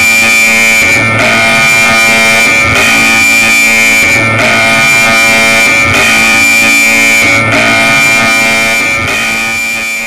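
Electronic emergency-alert alarm tone: a loud drone of many steady pitches sounding together, swelling in a pulse about every second and a half, beginning to fade out near the end.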